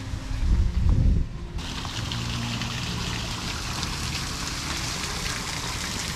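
Water falling steadily down a small artificial rock waterfall, a constant splashing hiss that comes in about a second and a half in. Before it, a brief low rumble is the loudest sound.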